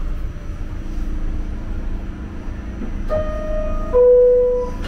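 New York City subway car's two-note door chime, 'ding dong': a higher tone and then a louder, lower one that fades, over the low rumble of the train. The chime warns that the doors are about to close.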